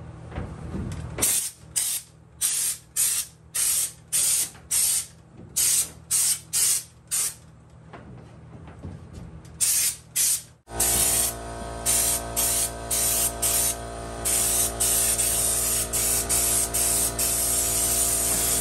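Air-powered schutz undercoating gun spraying Shake & Shoot bedliner from a can in short hissing bursts, about two a second with pauses. About ten seconds in, a steady hum comes in abruptly, and the spray bursts run longer and closer together.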